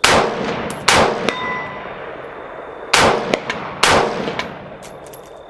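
Four shots from a scoped AR-style semi-automatic rifle, fired as two pairs about a second apart. Each shot is followed a moment later by the faint clang of the bullet striking a steel plate at 100 yards.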